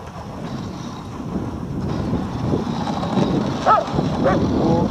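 Dog sled running over snow: a steady rushing hiss of the runners with wind on the microphone. Near the end come a few short, wavering, high-pitched calls.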